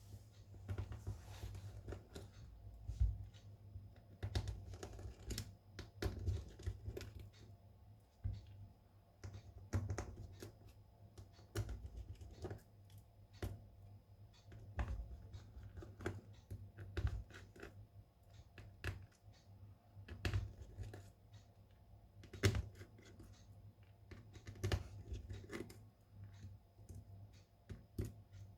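Irregular small clicks, taps and scrapes of hand tools working on a Samsung Galaxy S22 smartphone during a screen repair, over a low steady hum.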